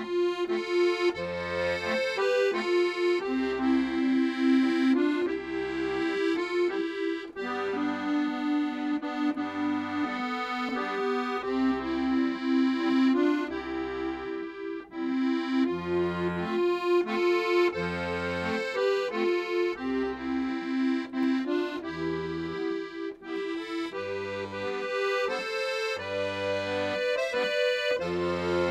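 Accordion music: a melody over held chords with a regular bass line.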